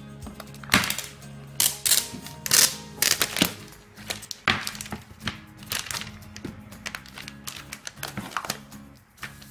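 Thin plastic protective film crinkling and crackling in irregular sharp bursts as it is peeled off a tablet's screen, over steady background music.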